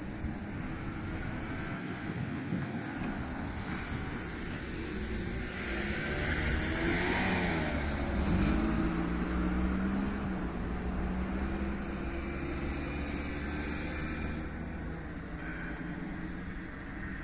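An engine-driven vehicle passing by, loudest about halfway through, its engine note bending down in pitch as it goes past, then a steady hum.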